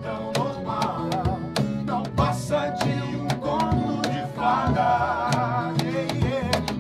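Live band song: a man sings a wavering melody over strummed acoustic guitar, with sharp percussive hits keeping a steady beat.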